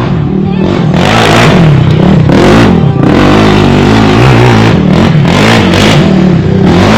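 ATV (quad) engine revving, its pitch rising and falling again and again, over loud rushing noise.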